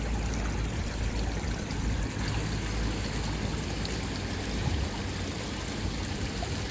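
Koi pond water running and trickling steadily, with a low rumble underneath.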